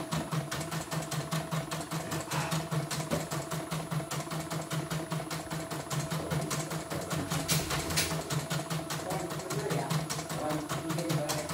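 CNY computerized embroidery machine stitching steadily at speed, with a rapid, even ticking of the needle over the hum of its motor. It is test-stitching a design with its covers off after a repair for stopping mid-stitch, and runs without stopping.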